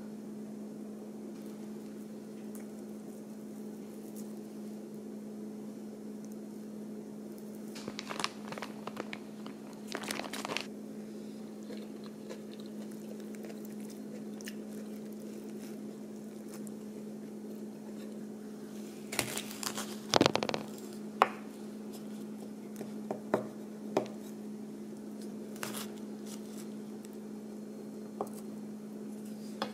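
A steady low electrical hum, with a few short clusters of crunching and clicking, the loudest about two-thirds of the way through.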